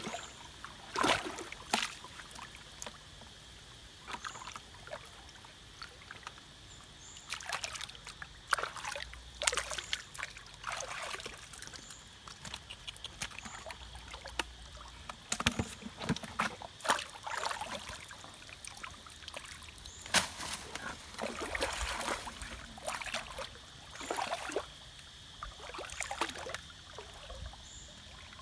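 Shallow stream water splashing and sloshing in irregular bursts as someone wades through it, over a steady high-pitched hum.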